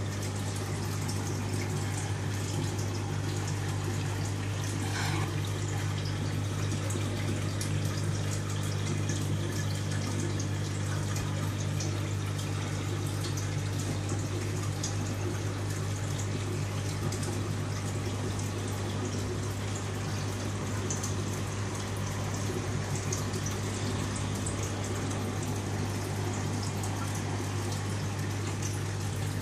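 Aquarium water bubbling steadily from an air-bubble curtain, over a steady low hum from the tank's pump.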